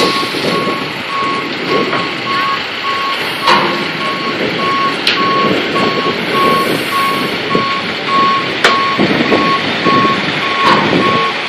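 A truck's back-up alarm beeping steadily, about one and a half beeps a second, as the semi-truck reverses, over steady truck engine noise. A few sharp knocks come through along the way.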